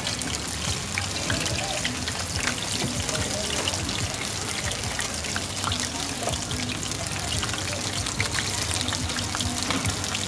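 Hot oil sizzling steadily with many small pops around chive cakes shallow-frying in a wide pan.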